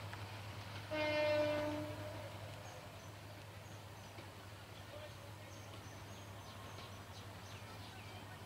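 A single horn blast of about a second on one steady pitch, over the fading rumble of a train moving away. Small high chirps follow.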